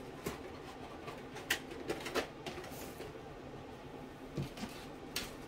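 A few light, sharp clicks and knocks, as of objects being picked up and handled, over faint room tone with a low steady hum.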